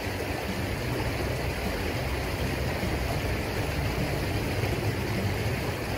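Shallow river rapids rushing steadily, a continuous even wash of water noise with some low rumble.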